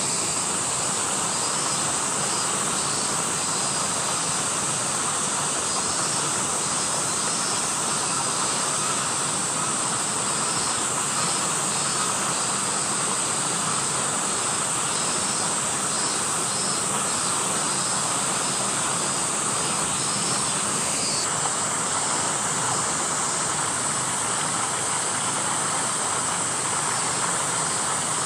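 Cicadas singing in a dense summer chorus, a steady high buzzing that does not let up.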